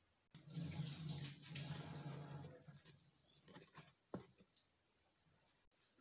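Preethi mixer grinder grinding sautéed herbs and black peppercorns into a paste. It hums steadily, then fades out over about two and a half seconds, followed by a few light clicks.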